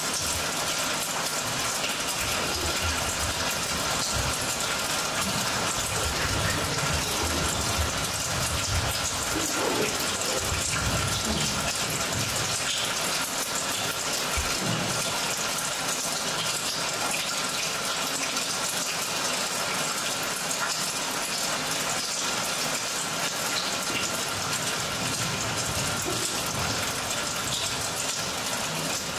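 Steady rushing, hissing noise from the dance piece's sound score, with a faint steady tone running through it and no beat or voices.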